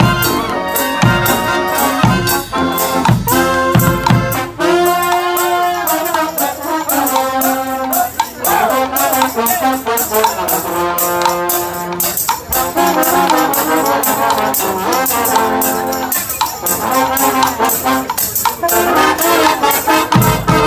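Live brass band playing: trumpets and trombones in held and moving chords over a steady beat of drums and tambourine.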